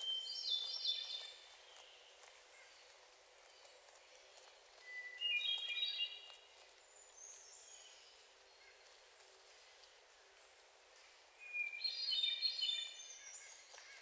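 Hermit thrush singing three flute-like phrases about five seconds apart. Each opens on a long clear note and then breaks into a quick cluster of higher, ringing notes, and each phrase starts at a different pitch.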